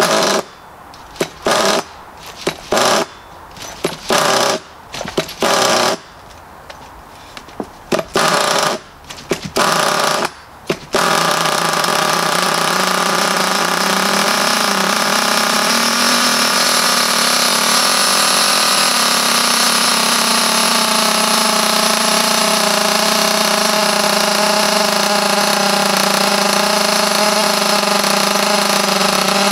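Cold .28-size nitro engine of an HPI Pulse 4.6 RC car being pull-started after months without use: a quick series of short pulls on the recoil starter, then about eleven seconds in it fires and keeps running steadily at idle.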